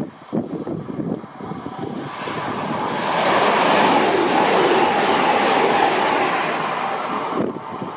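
High-speed train running through a station at speed without stopping: a rush of wheel and air noise builds from about two seconds in, stays loud through the middle with a faint high whine, then cuts off suddenly near the end as the train clears. Wind buffets the microphone at the start.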